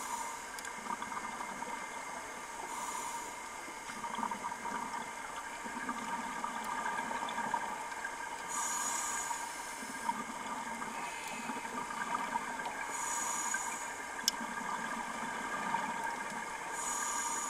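Scuba diver breathing through a regulator underwater: a short hiss of inhalation about every four to five seconds, with softer bubbling exhalations between them, over a steady underwater hum.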